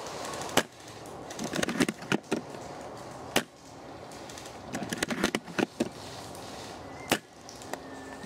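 Scattered sharp clicks and snaps from airsoft gunfire and BBs striking branches in woodland, with two short bursts of quicker crackling.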